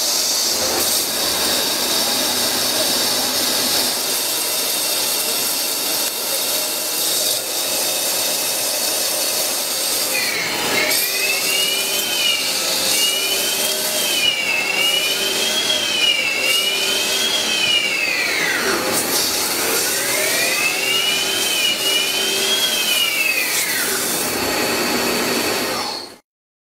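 CNC lathe turning and grooving a steel workpiece: steady machining noise with a hiss of cutting. From about ten seconds in, a pitched whine rises and falls repeatedly as the tool works the contour. The sound cuts off abruptly near the end.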